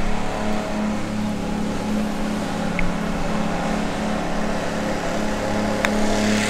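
A small engine runs steadily with a slow, even pulse. About six seconds in there is a single sharp click: a golf club striking the ball on a chip shot.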